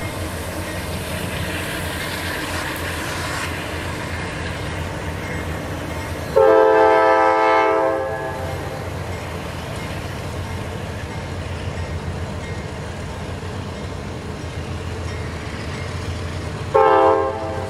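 Norfolk Southern and Union Pacific diesel freight locomotives rumbling past, with one loud blast of the air horn about six seconds in and a shorter blast near the end.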